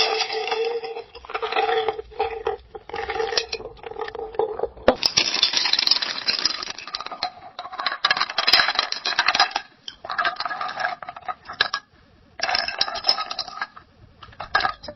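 Ice cubes clinking and rattling in a glass, a quick run of small knocks with a faint ring of the glass. About five seconds in a new take starts, brighter and denser, with a short pause near the end.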